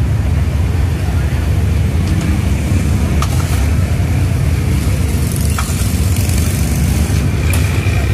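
Steady low roar of large gas burners under the frying woks and pots, with a few sharp clinks of metal ladles and scoops against steel.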